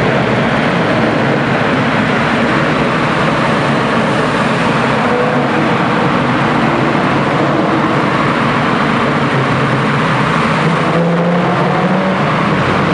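Car engines and exhausts running at cruising speed inside a road tunnel, a steady loud drone of engine and road noise with a low engine note that rises slightly about eleven seconds in.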